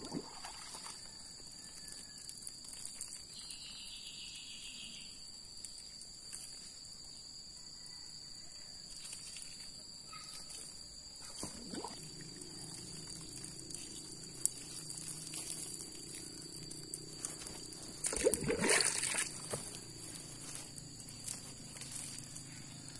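Outdoor rural ambience with a steady high-pitched insect drone. About halfway a low hum sets in, and about four-fifths through there is a short, louder burst of water pouring or splashing.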